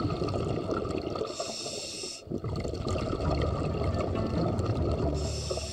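A scuba diver breathing through a regulator underwater. Hissing breaths alternate with rumbling stretches of exhaled bubbles, about one breath every three to four seconds.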